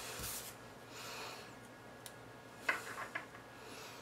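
Faint handling of small cardstock paper flower pieces: a few soft rustles and light taps about three seconds in, with a breath through the nose near the start.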